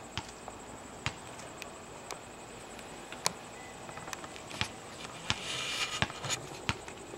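Basketball bouncing on an outdoor court: single sharp thuds at uneven intervals, about one a second, with a short burst of hissing noise about five seconds in.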